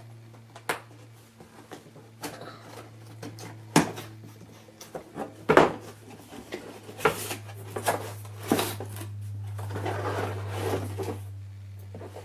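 Cardboard toy box being handled and opened: scattered knocks and taps of cardboard against the table and hands, with a stretch of cardboard and packaging rustling in the second half. The loudest knock comes about five and a half seconds in.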